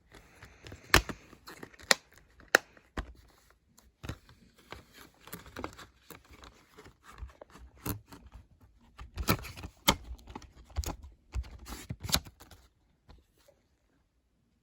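Blu-ray packaging being handled: tearing and crinkling, with irregular sharp clicks and knocks. The loudest clicks come about one, two and two and a half seconds in and again in a cluster near the end, and the sound dies away shortly before the end.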